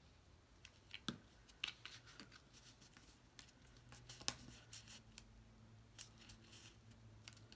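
Cardstock handled by hand: faint rustling and light clicks as folded paper sections are pressed and smoothed flat onto fresh glue, the loudest about four seconds in. A steady low hum runs underneath.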